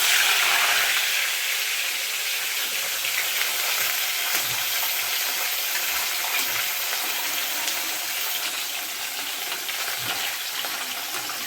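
Pieces of fish frying in hot oil: a steady sizzle, strongest at first as the fish goes in and easing slightly later.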